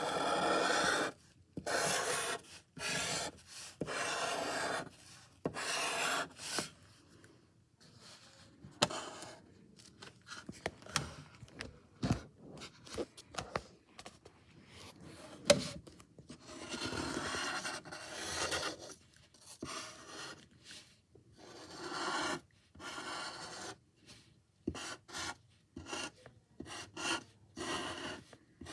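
A drawing tool scratching on paper in bursts of a second or two with short pauses, with a couple of sharp taps about halfway through.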